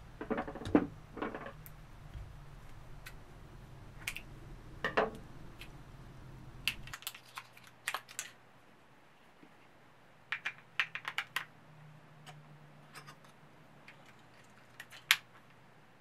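Irregular light plastic clicks and taps from a small handheld digital recorder being handled and turned over, some in quick clusters and one sharp click near the end.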